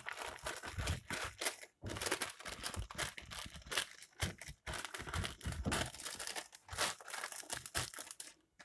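Sheet of paper crinkling and rustling as hands press a slab of peanut brittle flat inside it and fold the paper over, in irregular strokes.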